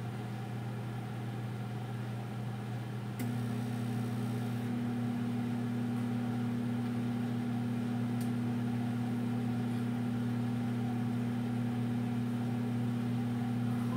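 Over-the-range microwave oven running with a steady hum. About three seconds in a click is heard and a second, higher steady hum tone joins, making it louder.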